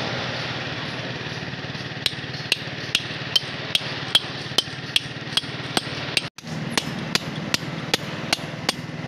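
Small hammer striking a steel chisel held against a large stone boulder, chiselling a hole into it. The sharp, ringing metallic taps begin about two seconds in and repeat about two and a half times a second over a steady low background hum.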